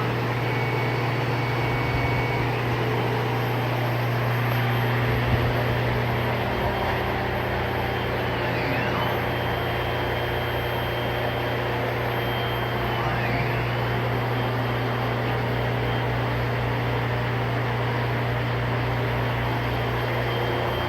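CNC plasma table's axis drive motors whining as the gantry traces a cut path with no torch fitted, over a steady low hum. The whine slides up and back down in pitch twice partway through as the axes change speed.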